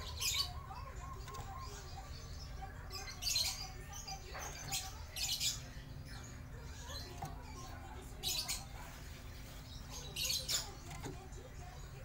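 Caged common hill myna calling: about six short, shrill, harsh calls a second or more apart, over a steady low hum.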